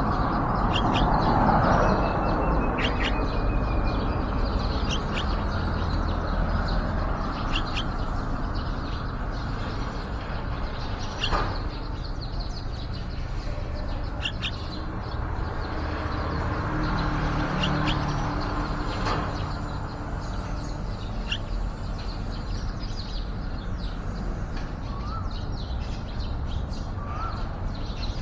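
Birds chirping: short, high chirps scattered throughout, with a few small rising notes near the end, over a steady low background rumble.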